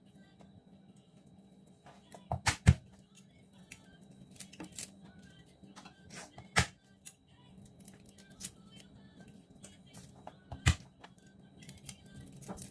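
Knocks and small clicks of garlic cloves being crushed and peeled on a plastic cutting board: a quick cluster of sharp knocks about two seconds in, then single knocks near the middle and later, with lighter clicks between.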